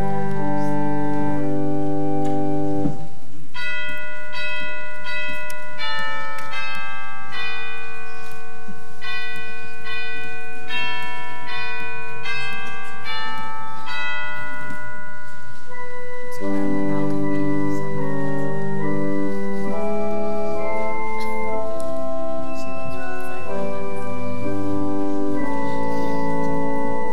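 Church organ playing held chords with a deep bass line. A few seconds in the bass drops out for a lighter, higher passage of moving notes, and the full texture with bass returns a little past halfway.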